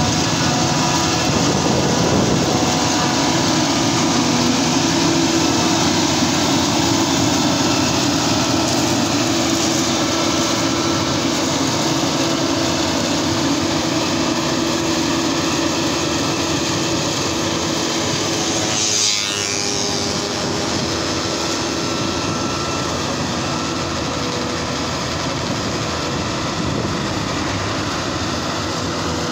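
Claas Jaguar self-propelled forage harvester cutting maize: its engine and chopping gear make a steady, loud mechanical drone with several held tones, mixed with the tractor hauling the trailer alongside. The sound eases a little about two-thirds of the way through as the machines pull away.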